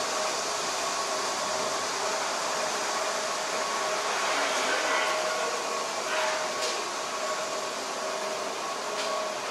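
Steady mechanical rushing noise with a faint steady hum, and a couple of faint clicks near the end.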